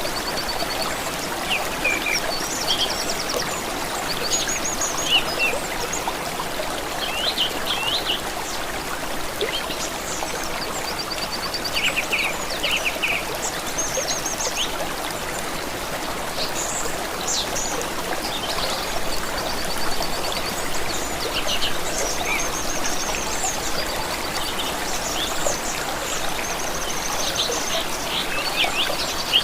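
A stream running steadily, with several small songbirds chirping and trilling over it.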